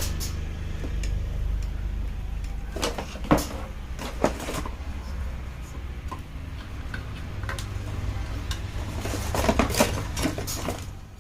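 Clicks, clinks and knocks of small hard parts from an air horn kit being handled, with sharp clicks about three and four seconds in and a quick cluster near the end, over a steady low hum.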